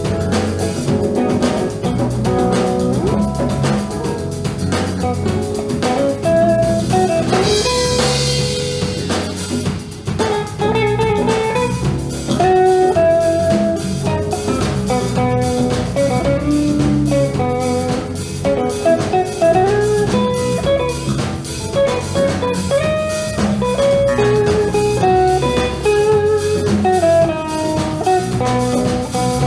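Live band playing an instrumental passage: electric guitar and bass guitar over a Roland keyboard and congas, with a steady drum beat and a melody line that bends between notes.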